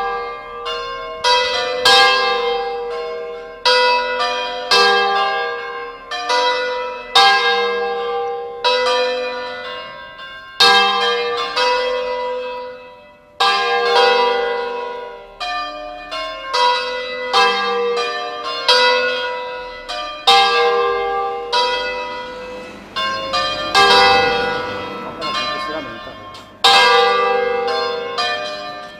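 Four church bells of a five-bell ring in G, cast by Giacomo III Crespi of Crema, swung by hand in a full peal (a distesa). The strikes come again and again in an irregular, overlapping pattern, each one ringing on and fading.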